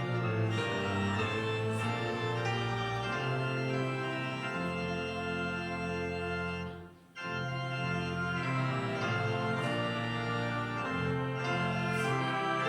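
Church organ playing held chords that change every second or two, breaking off for a moment about seven seconds in and then starting again.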